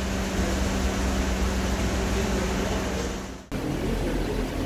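Steady workshop machinery noise with a constant low hum. It fades and cuts out about three and a half seconds in, then comes back at much the same level.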